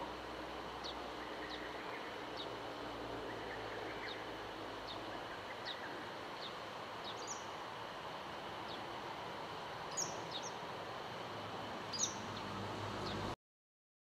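Shallow stream running over rocks, a steady babble of water, with a bird giving short high chirps about once or twice a second, two of them louder about ten and twelve seconds in. The sound cuts off suddenly shortly before the end.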